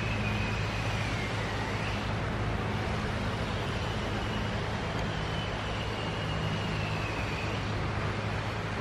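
Steady low mechanical hum with a faint thin high whine that drifts slightly in pitch.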